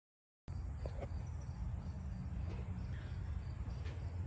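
After half a second of silence, a steady low rumble of ambient noise, with faint high-pitched chirping like insects and a couple of soft clicks about a second in.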